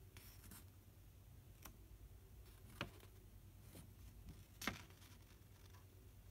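Near silence broken by a few faint crinkles and ticks of a paper instruction leaflet being handled; the two loudest come near the middle of the stretch.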